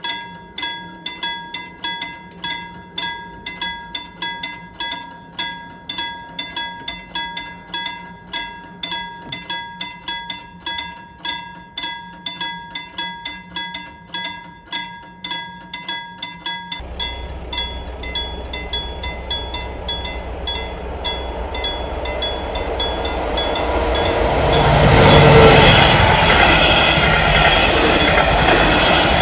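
Level-crossing warning bell ringing in even strokes, about two a second, that stops about halfway through. A low rumble then grows into the loud passing of an SJ Rc6 electric locomotive and its coaches over the crossing near the end.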